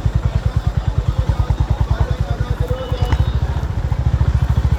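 Honda H'ness CB350's single-cylinder engine running under way, its exhaust note a steady low beat of rapid, even pulses. About three seconds in the beat eases briefly, then comes back quicker and a little louder as the throttle opens.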